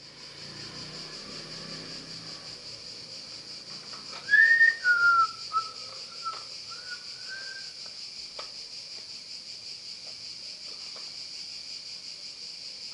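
A person whistling a short phrase of a few gliding notes, starting about four seconds in, over a steady high-pitched hiss. A faint click or two of handling follows.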